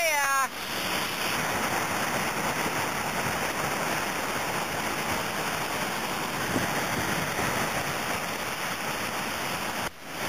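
Whitewater of a river waterfall ledge rushing steadily, with a short shout at the very start. The rushing drops out briefly near the end.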